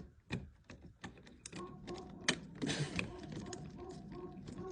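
Small metal clicks and rattles of a door deadbolt's screws and parts being unscrewed and pulled apart.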